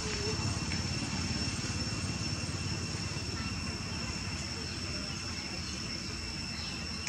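Steady high-pitched insect drone over a low, steady rumble.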